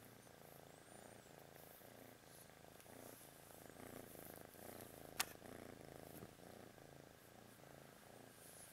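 Tabby kitten purring softly and steadily, close by. A single sharp click about five seconds in.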